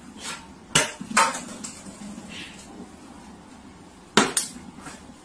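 Plastic water bottle knocking against a hard shelf: two sharp knocks about a second in and two more a little before the end, as it is set down or tipped.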